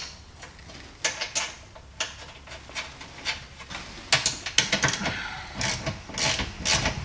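A few metal clicks and clinks as a washer and nut are fitted on a rear camber-arm bolt, then from about four seconds in a socket ratchet clicking rapidly as the nut is run down snug.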